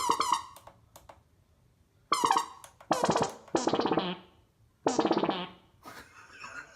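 Alesis Micron synthesizer played in a handful of short buzzy phrases with a fast pulsing wobble, separated by brief pauses.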